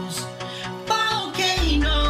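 Song music with sustained chords; the bass drops out at the start and comes back near the end, and a short bending melody line plays in between.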